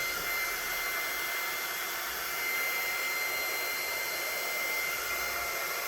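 Hot-air tool blowing steadily, a continuous rushing hiss with a thin steady whine, as it heats and shrinks heat-shrink tubing over a cable connection.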